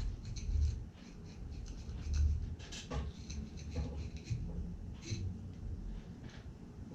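Curved boning knife cutting into a Spanish mackerel on a nylon cutting board, making short, irregular scratching strokes as the blade works through skin and flesh.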